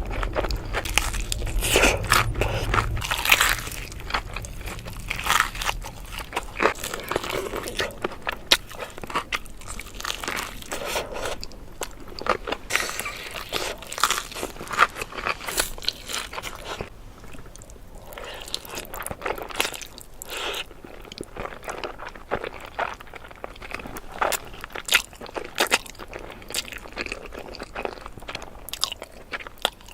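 Close-miked eating: a person chewing and biting food, with many irregular short, sharp wet mouth clicks.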